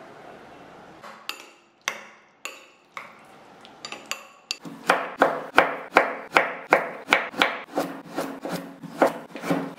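A kitchen knife slicing a carrot into rounds on a wooden cutting board, knocking on the board about three times a second from about five seconds in. Before that come a few sharp clicks from a metal spoon against a ceramic bowl as raw chicken is mixed with sauce.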